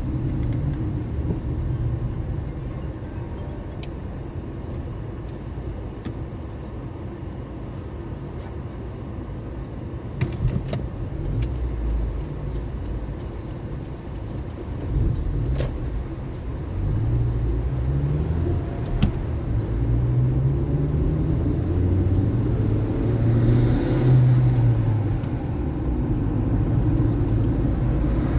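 Car driving through city traffic: a steady low engine and road rumble, with the engine pitch rising and dropping a few times in the second half as the car accelerates. A few sharp ticks can be heard along the way.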